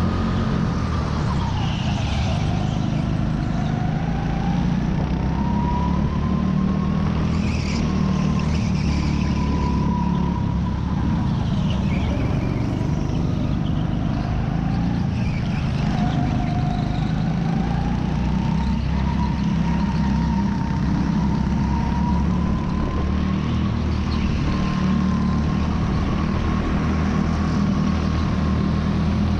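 Rental go-kart engine running hard, heard from on board the kart, with a steady low drone and a whine that rises and falls in pitch as the kart speeds up and slows through the corners. Other karts run close by.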